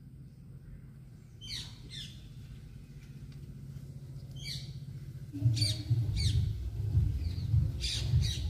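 A bird calling: short calls that each fall quickly in pitch, mostly in pairs, repeated through the stretch. From about five seconds in, a louder low rumble runs underneath.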